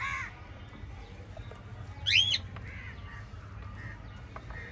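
Cockatiels calling: a short arching screech at the start and a louder rising-and-falling screech about two seconds in, with fainter calls near the end, over a low steady hum.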